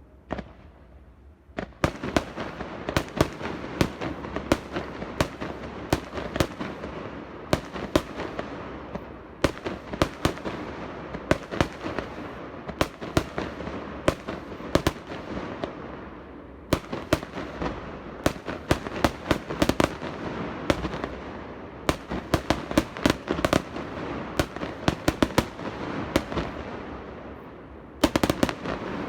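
Fireworks display: a dense barrage of sharp cracks and bangs over continuous crackling, starting after a quiet second and a half and coming in waves, with a loud burst near the end.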